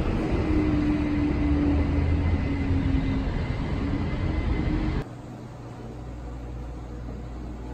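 Outdoor traffic noise: a vehicle engine's low drone over a steady rush of noise. It cuts off suddenly about five seconds in, leaving a quieter, steady low indoor hum.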